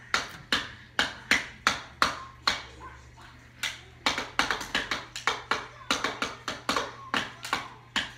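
A quick, uneven run of sharp taps and clicks, about two to three a second, over a low steady hum.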